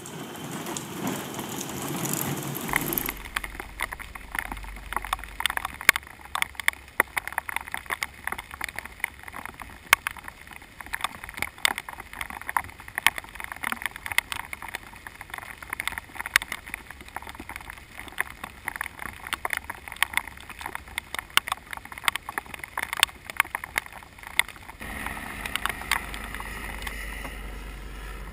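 Rain on a GoPro camera's waterproof housing: a dense, irregular patter of sharp ticks from drops striking it, over a low steady rumble. The ticks set in about three seconds in and thin out near the end.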